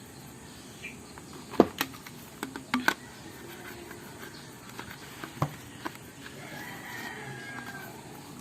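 A handful of sharp clicks and knocks, the loudest about one and a half seconds in, then a faint drawn-out call that falls slightly in pitch near the end.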